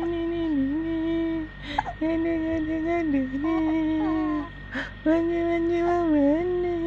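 A woman humming a slow tune in three long phrases with short breaths between them. The held notes dip in pitch and level off again.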